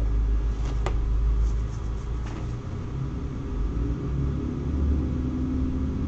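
A steady low rumble, with a single sharp click just under a second in and a few faint ticks shortly after.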